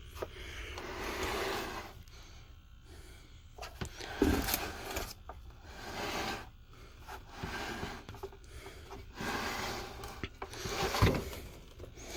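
Cardboard box and foam packaging being handled as a compact water heater is unpacked: bouts of rubbing and scraping, with a couple of knocks about four seconds in and near the end.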